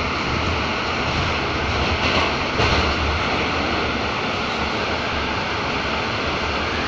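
Moscow metro Rusich train running at speed through a tunnel, heard from inside the carriage by the doors: a steady, loud rushing of wheels on rails and air in the tunnel, swelling briefly about two to three seconds in.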